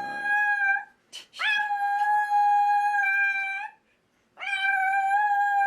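A dog howling in long, steady-pitched notes. One howl ends just under a second in, a second is held for about two seconds, and a third begins near the end.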